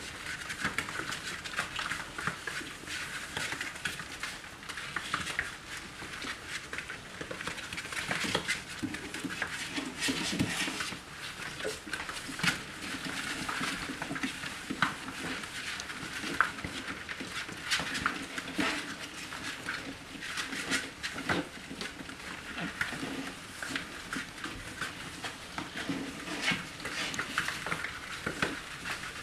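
A litter of Belgian Tervuren puppies play-fighting, with small growls and yips over continual clicking and scrabbling of claws on the whelping-box floor.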